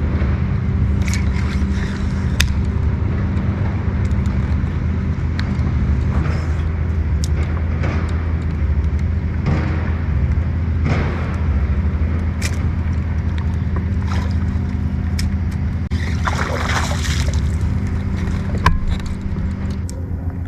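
An engine drones steadily at a low pitch, with a few scattered clicks and a brief rush of noise about three-quarters of the way through.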